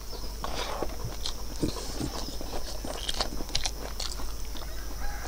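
A man chewing a mouthful of rice and buffalo innards curry close to the microphone, with scattered small wet clicks and smacks of eating.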